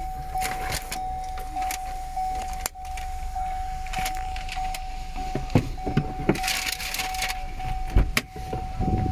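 A steady high electronic warning beep, pulsing slightly, over a low rumble, with a few sharp knocks and a short rustle of handling noise in the second half.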